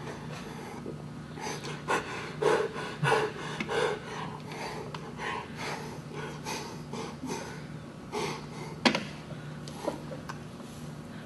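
A person slurping and sucking soup from a bowl held up to the mouth, in short irregular bursts. Near the end there is one sharp click, the loudest sound here, and a steady low hum runs underneath.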